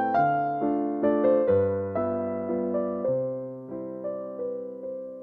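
Background piano music: a melody of struck notes that fade away, over a lower bass note that changes every second or so.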